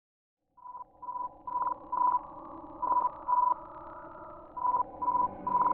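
Morse code 'HI' as a keyed beeping tone: four short beeps, a pause, two short beeps, then the same again, over a faint steady hum. It is the amateur radio operators' 'HI' signal as picked up by NASA's Juno spacecraft during its Earth flyby, played back as audio.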